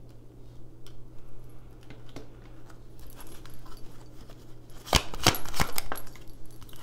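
Tarot cards being handled and shuffled by hand: light scattered clicks, then a burst of sharp card snaps about five seconds in, over a low steady hum.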